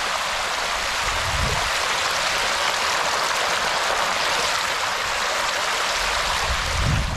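Steady rush of flowing water, with two low thumps, one about a second in and one near the end.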